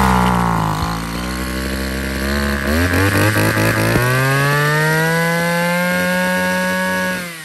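34 cc Kawasaki two-stroke brush cutter engine running just after a pull start, given throttle: its speed wavers and stumbles unevenly for the first few seconds, then climbs smoothly to a steady higher rev. Near the end it cuts out and winds down.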